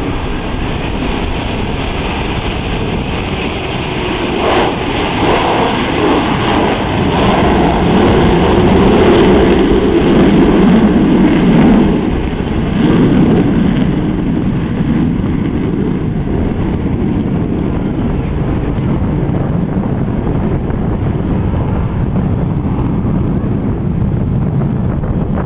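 Rockwell B-1B Lancer's four jet engines at takeoff power as the bomber lifts off and climbs away. The loud jet noise builds to its peak about ten seconds in, then eases to a steady, lower rumble as the aircraft gains height.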